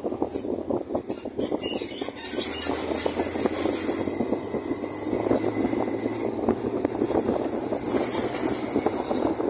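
A vehicle driving along a road, its engine running under a dense, continuous rattle and road noise.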